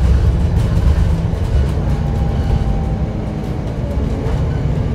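Double-decker sightseeing bus running along the road, heard from on board: a steady low engine and road rumble. A faint thin whine comes in for a moment midway.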